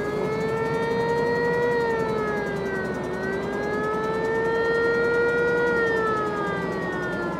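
Signal siren of a river tug pushing a barge, sounded in greeting: one long wail whose pitch rises and falls slowly twice.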